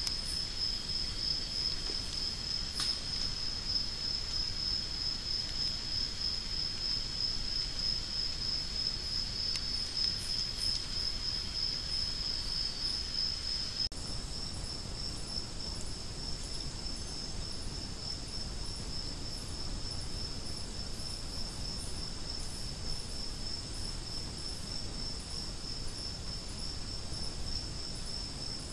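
Rainforest insects at night, crickets or similar, making a steady, high-pitched pulsing trill over a low background hiss. There is a single sharp click about halfway through.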